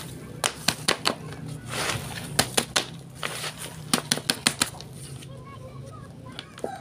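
Hand slapping the side of a plastic plant pot to loosen the soil and root ball of a bonsai cutting: quick groups of three or four knocks, with a rustle of soil shifting about two seconds in.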